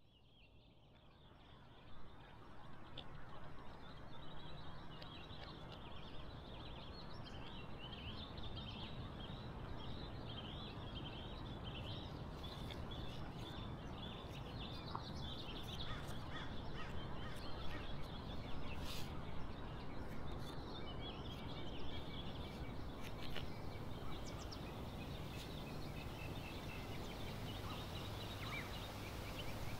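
Outdoor woodland ambience fading in: birds chirping continuously over a steady low background noise.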